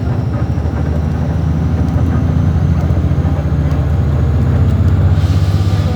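Diesel engine of an Iveco-chassis Mascarello Roma M4 bus running steadily, with a deep hum that grows a little louder toward the end. A brief hiss comes in near the end.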